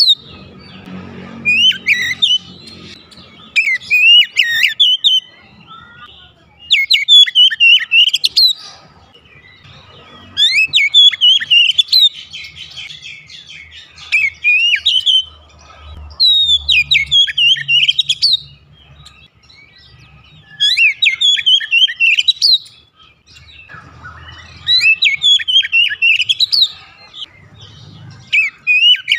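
Oriental magpie-robin singing: about eight bursts of rapid, falling whistled notes, each lasting a couple of seconds, with short pauses between them.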